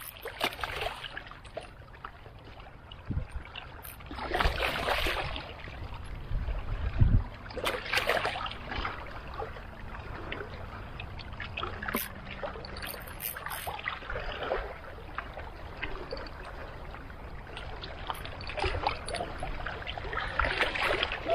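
Water sloshing and splashing in irregular washes, like small waves at the shoreline, with a few sharp clicks.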